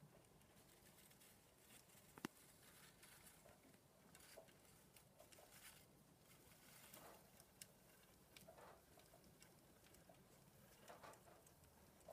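Faint scattered rustling and light patter of pet mice moving through wood-shaving bedding, with one sharp click about two seconds in.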